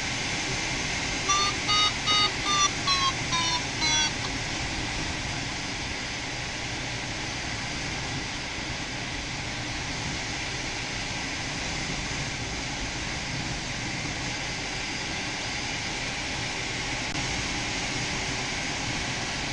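Steady rush of airflow around a PW-6U glider's cockpit in flight. About a second in, an electronic audio variometer sounds a quick string of short beeps, the last few falling in pitch, and stops about four seconds in.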